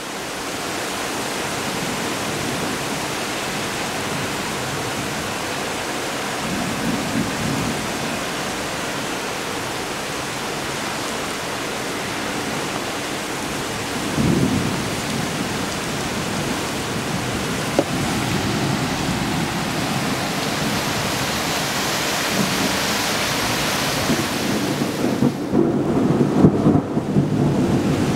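Heavy downpour of rain, a steady loud hiss, with thunder rumbling low a few seconds in, again about halfway, and loudest near the end.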